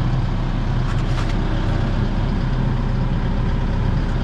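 Compact excavator's diesel engine idling steadily, heard close beside its open side compartment, with a couple of faint clicks about a second in.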